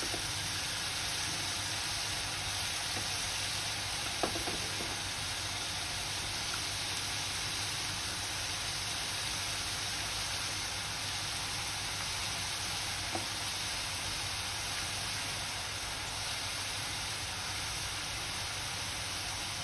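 Onion paste sizzling steadily as it fries in hot oil in an aluminium kadai over a low-to-medium flame, with a brief pop about four seconds in.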